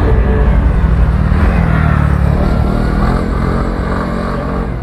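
Scooter ride with wind buffeting the microphone over the running engine of a TVS Ntorq 125. The sound is a steady low rumble that eases slightly near the end.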